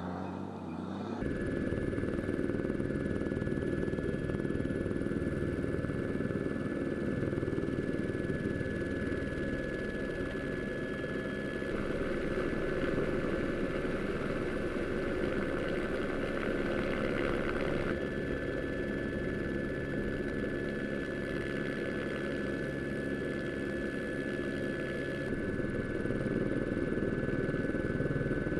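Steady engine noise: a dense low rumble with a constant thin high whine over it, hardly changing in pitch.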